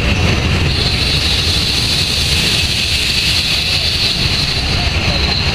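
Steam-hauled train running, heard from an open coach window: a steady heavy rumble of the wheels on the track with wind noise, and a high steady whine that comes in about a second in.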